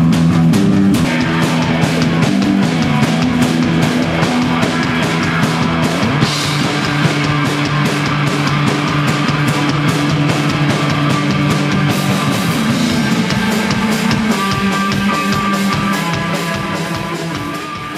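Live rock band playing loud: two drum kits pounding together under a bass guitar and distorted guitar, picked up by a camcorder's built-in microphone. The music fades out near the end.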